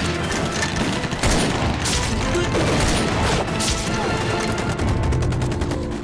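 Gunfight sound effects: many rifle shots overlapping in quick succession, then a fast, even burst of automatic fire near the end.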